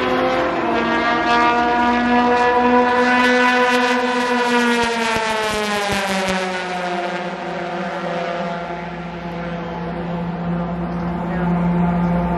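Porsche 911 RSR race car's flat-six engine at full speed passing by: a loud, high engine note that slides lower about midway as the car goes past, leaving a steadier, lower drone near the end.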